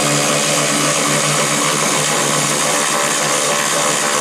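A cordless power tool running steadily at one pitch, spinning the 10 mm nut off a car battery's hold-down bracket.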